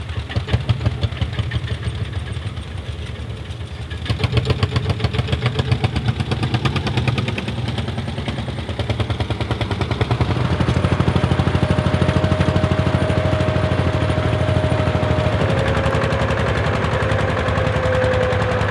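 Schlüter DS 15 H tractor's single-cylinder diesel running under load, with a fast, even thumping beat. It gets louder about four seconds in and again about ten seconds in. A faint steady whine comes in over the second half.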